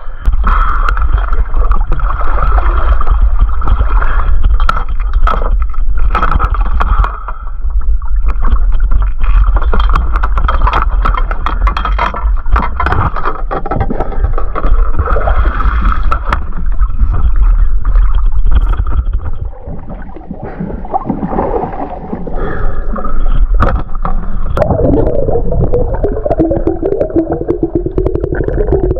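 Seawater sloshing and gurgling over an action camera at the surface and underwater, with a steady low rumble and irregular splashy knocks.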